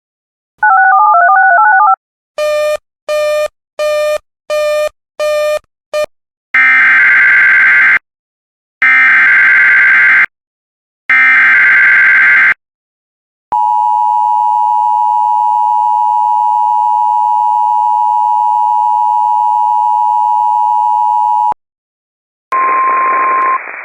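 Emergency Alert System tones: a short stepped electronic jingle and six quick beeps, then three buzzing bursts of SAME data code, then the two-tone EAS attention signal held steady for about eight seconds. Near the end it gives way to radio static with a brief tone as the relayed broadcast starts.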